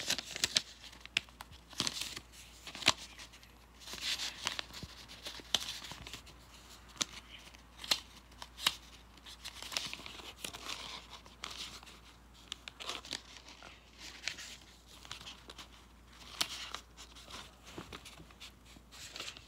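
Sheets of lined paper rustling and crinkling as they are handled and leafed through in a folder, in short irregular flurries.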